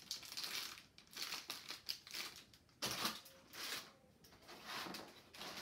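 Clear plastic bag crinkling and rustling as it is handled, in several irregular bursts.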